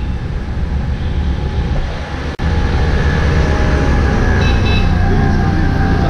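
Road traffic noise: vehicles running past with a heavy low rumble. The sound cuts out for an instant about two and a half seconds in.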